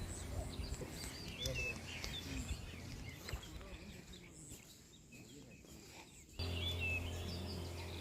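Outdoor rural ambience with small birds chirping now and then over a steady low hum, and faint voices in the background. The hum drops away after the first second and returns suddenly about six and a half seconds in.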